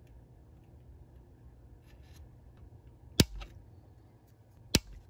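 Two sharp clicks of hand tools at a soldering bench, about a second and a half apart, over a faint low steady hum.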